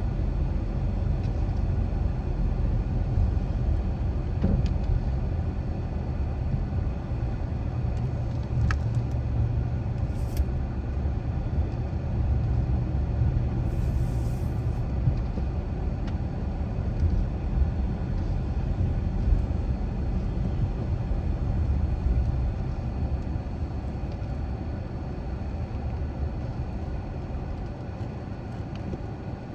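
Car driving at steady speed: a low, continuous rumble of tyres on the road and the engine, with a few faint ticks, easing slightly near the end.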